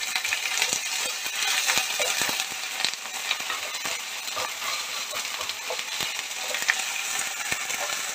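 Sliced onions and ginger-garlic paste frying in hot mustard oil in a kadai, a steady sizzle, with a wooden spatula scraping and tapping against the pan many times as it stirs.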